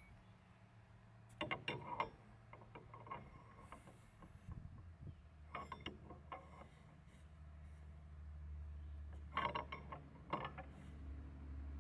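Metal clicks and knocks of a steel cane bolt being slid and turned in its gate bracket, coming in three short clusters. A low hum underneath grows louder from about halfway through.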